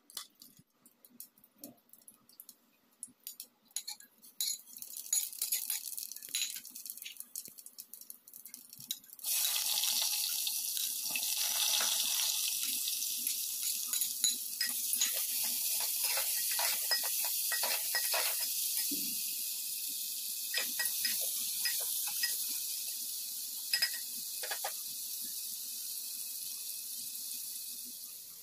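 Hot oil in an aluminium pressure cooker crackling and popping, the pops coming thicker over several seconds. About nine seconds in, sliced onions hit the oil and a sudden steady sizzle starts, with crackles through it.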